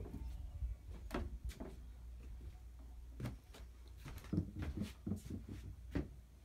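Irregular light knocks and clicks, closer together from about three seconds in, over a steady low rumble: footsteps and handling noise of a phone being carried through a doorway into a small room.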